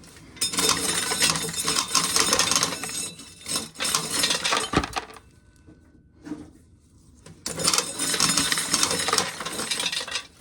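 Dry corn kernels being shelled off a broken ear by hand and rattling and clinking into a pail, in two long spells with a quieter gap between them. A single knock comes just before the gap.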